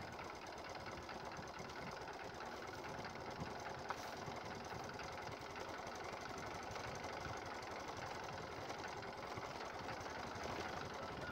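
2004 Honda Karisma motorcycle's small single-cylinder engine running steadily, faint and even, with a fast low rattle.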